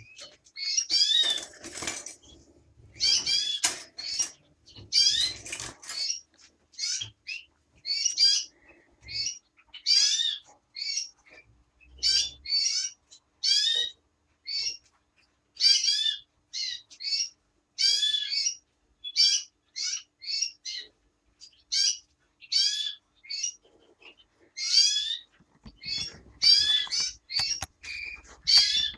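Caged finch calling: short, sharp chirps, often a pitch that rises then falls, coming about once a second, sometimes in quick pairs, with gaps between. A soft rustle runs under the calls in the first few seconds.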